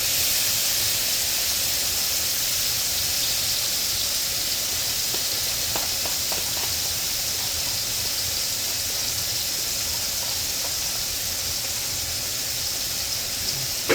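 Bay scallops and raw shrimp sizzling in hot oil, a steady loud hiss with a few faint pops about six seconds in.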